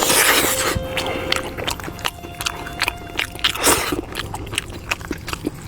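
Close-miked mouth sounds of eating meat: wet chewing, biting and smacking, with a louder slurping burst at the start and another around four seconds in.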